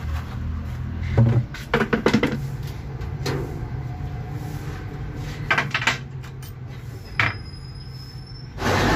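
Knocks and rattles of a food kiosk's hinged front serving panel being pushed up and opened, a handful of separate clatters over a steady low hum. Right at the end, louder street noise takes over.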